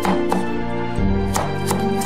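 Background music with a steady melody, over a few sharp, unevenly spaced strikes of a kitchen knife chopping carrot against a wooden cutting board.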